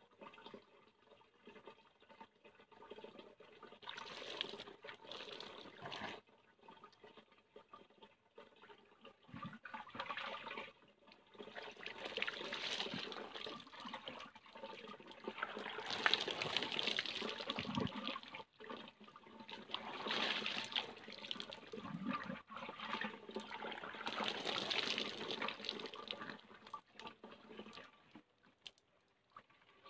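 Water pouring and splashing in repeated bursts of a few seconds each, with short quieter gaps between: a person bathing.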